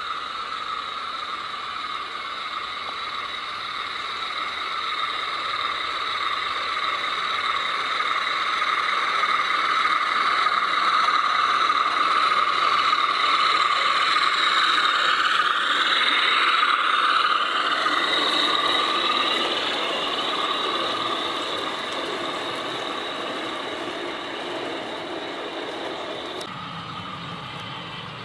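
O gauge model Class 47 diesel locomotive running by with a goods train: a steady high-pitched whine from its electric motor and gearbox mixed with wheels rolling on the track. It grows louder as the train nears, then fades as it moves away, and changes abruptly about 26 seconds in.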